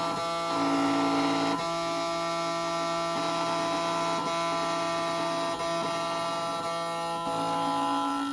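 Background music of held chords that change every few seconds.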